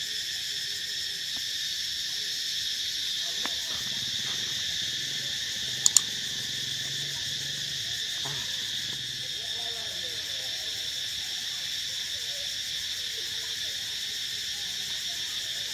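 Steady, high-pitched chorus of insects buzzing without a break. Two sharp clicks, close together, about six seconds in.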